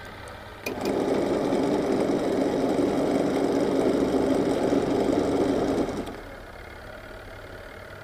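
Twin-tub washing machine wash motor switched on with a click about a second in. It runs steadily, turning the pulsator slowly through a V-belt and a geared reduction gearbox, then stops about six seconds in.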